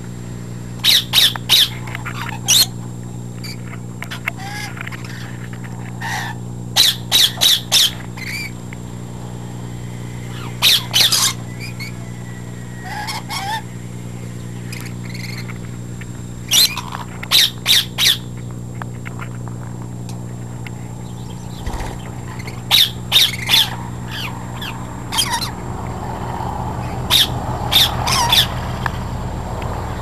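Pet parrots squawking: short, sharp screeches in quick clusters of three or four, repeated every few seconds, over a steady low hum.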